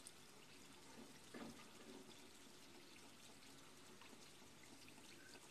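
Faint, gentle sizzling and crackle of donuts frying in oil in an aluminium kadhai, the oil only warm over a very low gas flame.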